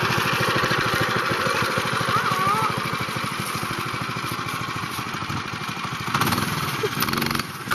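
A small engine running steadily with a rapid even putter, with a short squeak about two seconds in.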